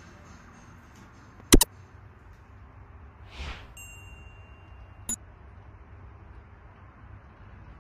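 Subscribe-button animation sound effects: a loud, sharp double click about a second and a half in, a short whoosh, then a single held ding that stops with a click.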